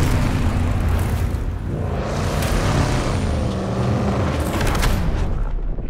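Off-road truck engines revving hard at speed across sand, the pitch swinging up and down.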